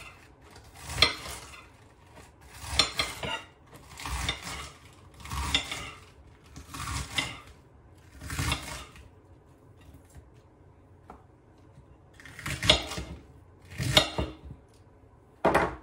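Knife slicing down through crisp romaine lettuce on a plate, each cut a short crunch that ends with the blade meeting the plate. About nine cuts, roughly one every second and a half, with a pause of about three seconds after the sixth.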